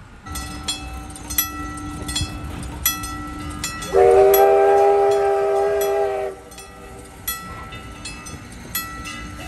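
Steam locomotive whistle blowing one long blast of about two seconds, a chord of several steady tones, as the engine whistles for the grade crossing; another blast starts right at the end. A crossing signal bell dings repeatedly throughout.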